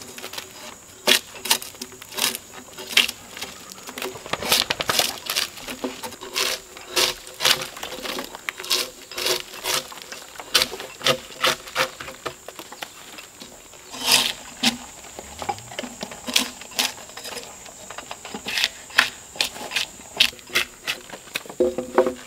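Drawknife debarking a log: repeated scraping strokes as the blade tears strips of bark away, about one to two strokes a second at an uneven pace.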